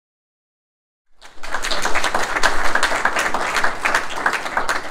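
Silence, then about a second in a small audience breaks into applause, many hands clapping steadily.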